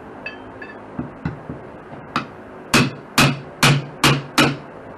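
Hammer striking wood paneling over drywall to knock it loose: a few light taps, then five hard blows in quick succession, about two a second.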